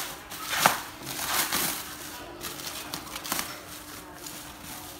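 Plastic stretch wrap being torn and peeled off by hand, crinkling, with a sharp rip about half a second in and further bursts around one and a half and three seconds in.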